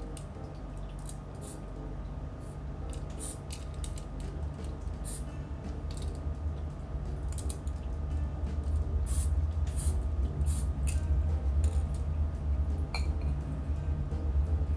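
Aerosol spray-paint can hissing in many short, irregular bursts. A low rumble grows louder underneath.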